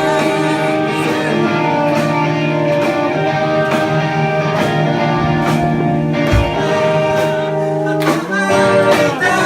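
A live band playing a song, with held guitar chords and sharp percussive hits, between sung lines.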